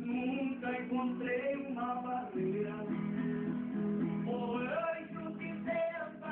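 Viola caipira, the ten-string Brazilian folk guitar, played with plucked and strummed notes in a running melody.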